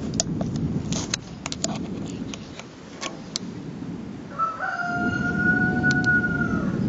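A rooster crows once, a long call starting about four and a half seconds in, over the continuous low rumbling of the erupting Tungurahua volcano. Scattered sharp clicks sound in the first few seconds.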